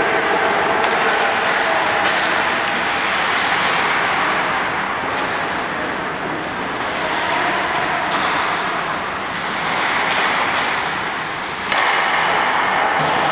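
Ice hockey practice on the rink: a steady hiss of skates and arena noise with scattered sharp clacks of sticks and pucks. It gets suddenly louder near the end.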